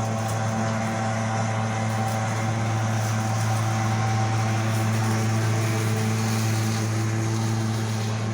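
Lawn mower engine running at a steady speed, one constant low hum.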